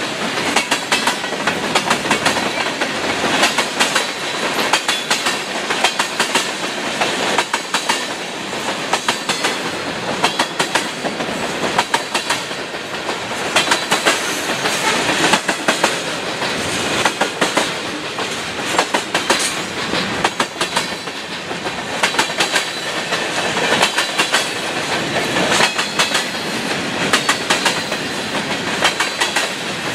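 Freight train of tank cars and covered hoppers rolling past, its steel wheels clacking over rail joints again and again over a steady rolling noise.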